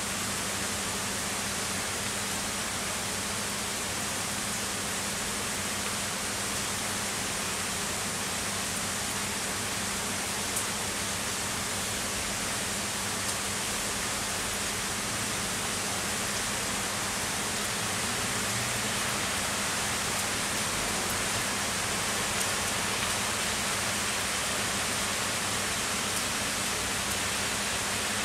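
Heavy summer rain falling steadily, an even hiss of countless drops with no break.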